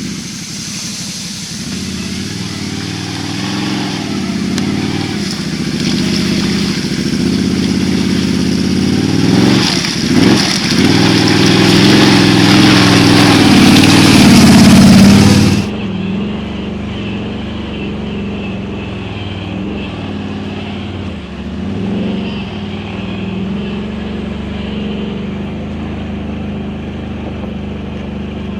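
Can-Am Outlander XMR 1000 ATV's Rotax V-twin with dual slip-on exhausts, running under throttle on a trail and revving up and down. It is loudest just past halfway, then drops suddenly to a quieter, steadier run.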